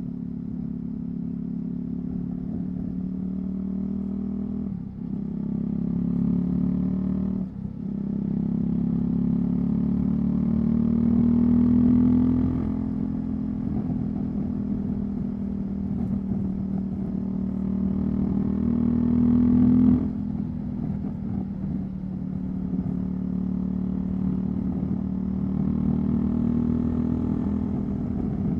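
Husqvarna Svartpilen 401's single-cylinder engine through a Leovince LV-10 exhaust, riding under way. The engine note breaks briefly for two quick upshifts about five and seven and a half seconds in. The revs then climb, ease off, climb again and drop sharply about twenty seconds in as the throttle closes.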